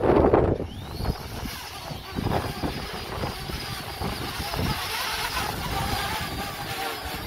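Small camera drone's propellers spinning up: a whine rises in pitch about a second in, then holds as a steady high whine. Gusts of wind buffet the microphone, loudest at the start.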